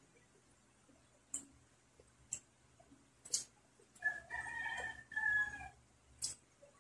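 A rooster crows once about four seconds in: a two-part call lasting about a second and a half. Around it are a few short, crisp clicks and crunches of eating by hand.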